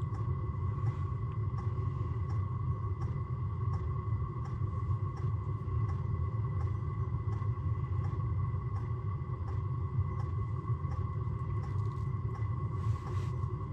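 Steady low rumble inside an ice-fishing tent, with a thin steady high whine over it and faint light ticks about twice a second; a short hiss comes near the end.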